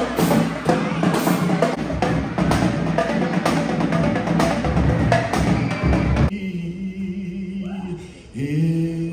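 Marching band drumline playing snare drums, bass drums and cymbals in a steady driving rhythm. About six seconds in it cuts off abruptly to voices chanting on long held notes.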